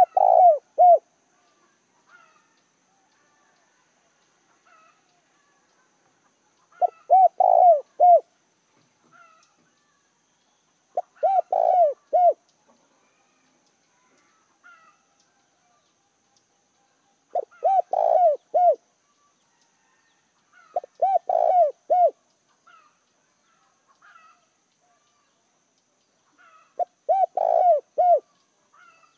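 Spotted dove cooing its song: six phrases, each a quick run of three or four low coos, spaced several seconds apart. Faint chirps of other small birds sound between the phrases.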